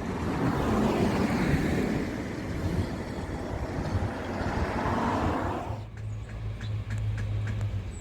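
Running noise of a passing vehicle, a steady rumbling wash that cuts off abruptly about six seconds in and leaves a low steady hum with a few faint ticks.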